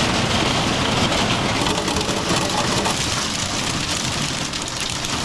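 Heavy rain drumming on a campervan's roof and rain-streaked windows, heard from inside: a steady, dense hiss with a low rumble underneath.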